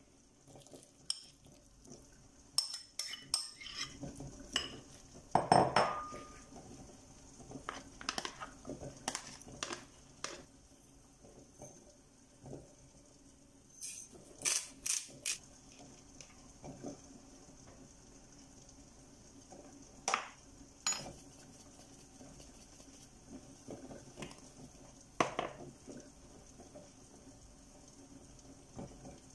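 Metal spoons clinking and scraping against a ceramic bowl as ingredients are spooned in and mixed, in short irregular clusters of clinks.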